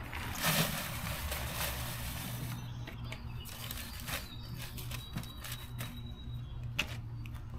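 Dirt poured from a plastic pot into a newspaper-lined plastic bucket: a rushing, hissing pour over the first two and a half seconds, then a quieter trickle with a few scattered taps.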